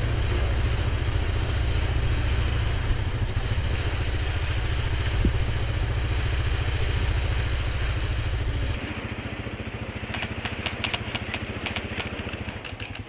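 ATV engine running steadily, dropping to a much lower level about nine seconds in as it eases off. Near the end, a quick run of sharp clicks lasts about two seconds.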